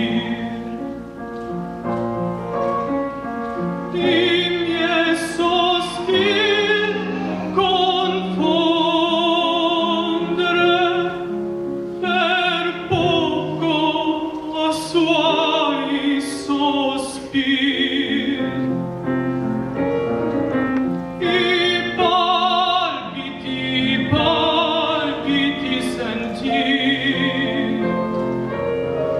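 Operatic singing: a single voice with wide vibrato on long held notes, phrase after phrase, over a sustained instrumental accompaniment.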